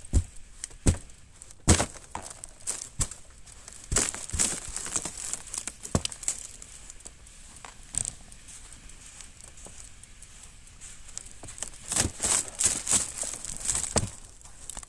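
Mountain bike ridden over snow, heard from a camera mounted on the bike: a crunching, crinkling noise with irregular sharp knocks and rattles, busiest near the start and again toward the end, calmer in the middle.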